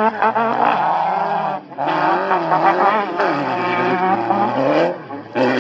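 Off-road race vehicle engines revving hard during qualifying runs, the pitch climbing and falling as the throttle is worked, with brief drops in level at about a second and a half in and near the end.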